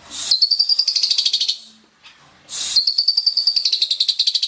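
Asian pied starling (jalak suren) singing: two long runs of rapid, buzzy repeated notes, with a short harsh rasp between them about two and a half seconds in.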